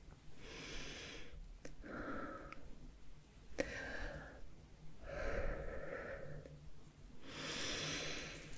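A person breathing slowly and audibly right at the microphone, about five soft breaths with short gaps between them, with a few light clicks.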